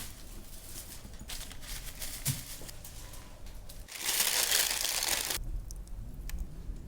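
Kitchen handling noises: crinkling and rustling, with a loud hiss lasting just over a second about four seconds in.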